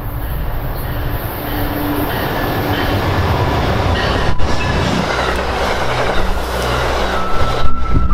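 Amtrak passenger train with a GE Genesis diesel locomotive passing at speed: the rumble of the engine and wheels on the rails grows louder as it draws alongside, then turns into the steady rush of the passenger cars going by. A thin, steady high wheel squeal comes in near the end.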